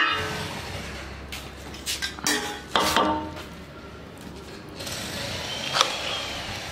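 A few metal clinks and knocks of a stainless steel plate against an iron kadai as thick chicken gravy is scooped up, the sharpest clink near the end with a brief ring.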